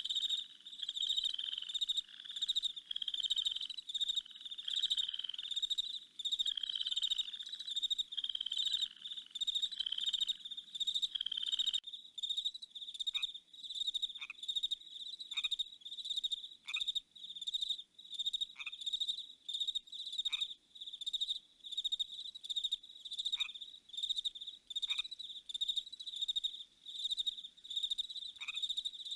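Night chorus of crickets and frogs. Frogs call about once a second over the crickets until an abrupt change about twelve seconds in. After that, fast steady cricket chirping carries on, with scattered short falling chirps.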